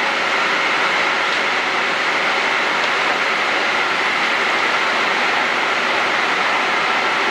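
Steady, even din of coal-fired power-station machinery in the boiler house by the coal feeders, the plant still running down with the last coal being fed. A faint high tone runs through the noise.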